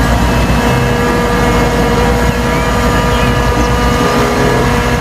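Dump truck engine running steadily with a low drone.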